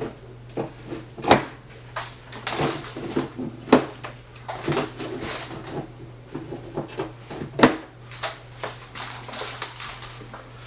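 Knocks, scrapes and rustling from a bike's shipping box and packaging being handled, with three sharper knocks: about a second in, near the middle, and about three-quarters through. A steady low hum runs underneath.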